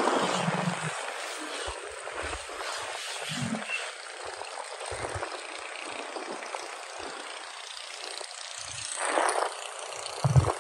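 Wind rushing over the microphone and road noise from a motorcycle riding at speed, steady with a few short low buffeting thumps. A louder gust of wind noise comes about nine seconds in, and another just before the end.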